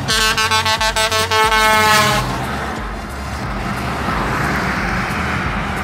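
Tractor-trailer's air horn sounds a rapidly pulsing blast for about two seconds as the truck approaches. After that comes the rushing noise of the big truck's engine and tyres going past.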